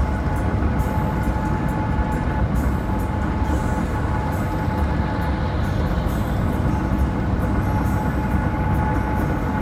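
Steady road noise of a vehicle cruising on the highway: a low tyre-and-engine rumble with a thin steady whine over it and light scattered ticks.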